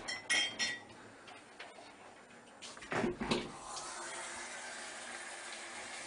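Kitchen dishes and pots clinking and knocking at the sink, with a few sharp clinks near the start and a couple of heavier knocks about three seconds in. Then a tap starts running into the sink, a steady rush of water.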